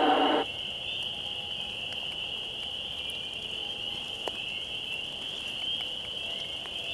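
A recorded Sasquatch 'whoop' call played back for call blasting cuts off suddenly about half a second in. After it there is a steady high-pitched whine and a few faint ticks, which the listeners put down to snow falling.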